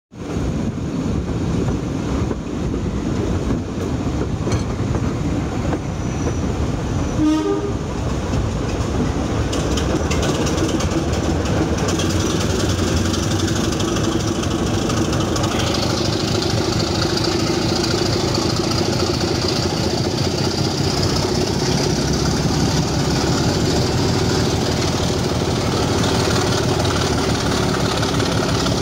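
Class 24 diesel locomotive's Sulzer six-cylinder engine working hard under load, with wheels clattering on the rails. The sound becomes denser and echoes once inside the brick tunnel. A short horn note sounds about seven seconds in.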